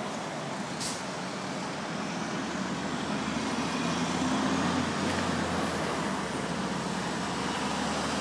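City street traffic noise, with the low engine rumble of a heavy vehicle such as a bus or truck growing louder from about three seconds in and easing off near the end. A brief click about a second in.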